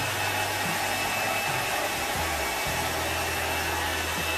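Hand-held hair dryer running steadily: a rush of air with a thin high whine, drying watercolour fabric paint on cloth.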